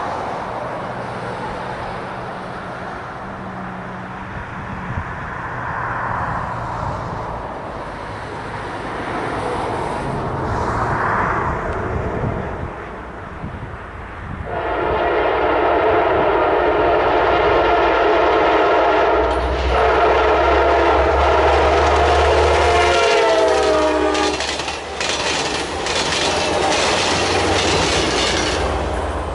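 Amtrak Piedmont passenger train hauled by EMD F59PH diesel locomotives approaching and passing at speed. About halfway through, the locomotive's multi-note air horn sounds a long blast, and its chord drops in pitch as the locomotive goes by. Under the horn the diesel engine drones and the wheels click over the rail joints near the end.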